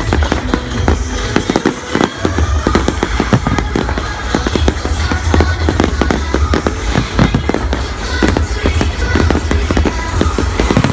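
Fireworks going off in quick succession, many bangs and crackles, over loud show music with a heavy bass line.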